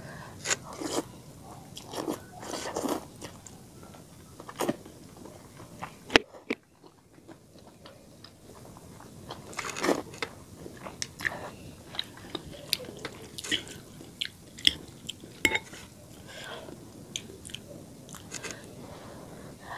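Close-up eating of spicy instant noodles: slurping the strands off a fork and chewing, with wet mouth smacks and sharp clicks, one loud click about six seconds in.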